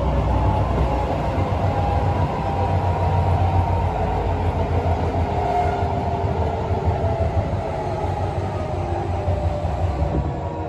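Tokyo Metro 15000 series electric train running, heard from inside a car: a steady low rumble of wheels on rail, with faint tones from the Mitsubishi IGBT-VVVF traction drive.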